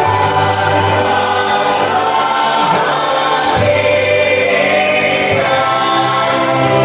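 Vocal group singing a song in multi-part harmony, the voices split into parts and holding long chords that shift every second or two.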